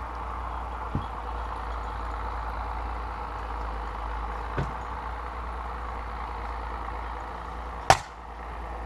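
A Cyclone 2.5 kg wood-splitting maul strikes a log once near the end, a single sharp crack that is by far the loudest sound. Two much softer wooden knocks come before it as the log is set up.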